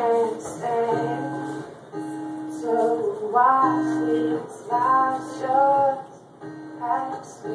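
A woman singing solo while playing an acoustic guitar, her sung phrases about a second long over ringing guitar chords.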